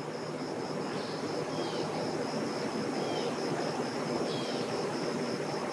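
Outdoor ambience: insects trilling in rapid, even pulses, with a few short bird chirps about every second and a half, over a steady wash of background noise.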